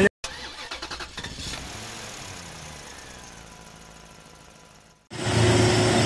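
Heavy diesel truck engines on a climb: a rapid pulsing engine note fades away over several seconds, then about five seconds in a louder, steady truck engine starts abruptly as it pulls up the grade.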